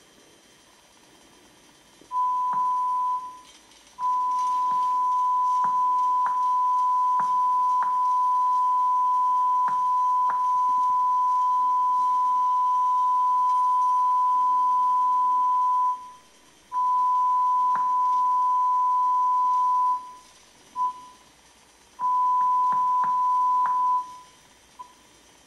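Ferguson Ariva T50 digital terrestrial receiver's signal-indicator beep on its antenna-alignment screen: a steady high tone that holds while the receiver has a signal and cuts out several times, with short clicks over it. The dropouts go with the signal being lost, the fault the receiver is suspected of.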